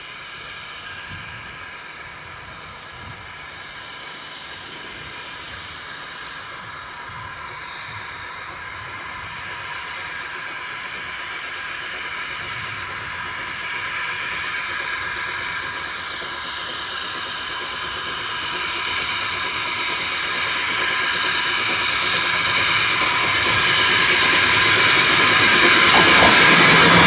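Victorian 0-4-0 saddle tank steam locomotive No. 1340 'Trojan' running with vintage coaches. It grows steadily louder as it approaches and is loudest as it reaches the listener near the end. A steady high hiss with ringing tones sits over the sound of the train.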